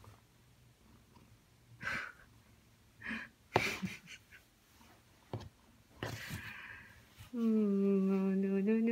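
A few soft, breathy puffs, then a loud, long, held vocal tone starting about seven seconds in, lifting in pitch near the end.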